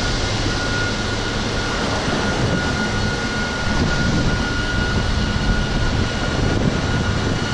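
Steady machinery drone, a low hum with a thin constant whine, over a rushing haze of wind and sea noise.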